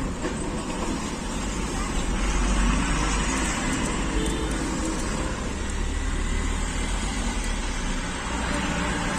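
Steady road traffic noise: motor vehicles running, with a low rumble that swells slightly a couple of seconds in.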